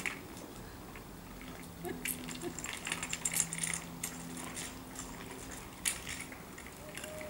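Light metallic clicks and ticks from a child's bicycle being handled on the handlebars, the brake levers squeezed and let go, busiest in the middle with one sharper click near the end.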